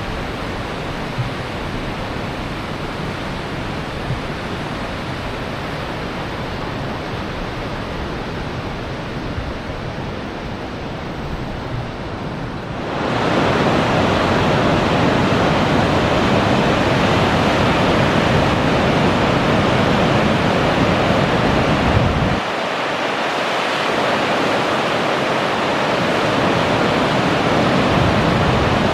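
Waterfall: a steady rush of falling water. It gets suddenly louder about halfway through, and its low rumble thins out a few seconds before the end.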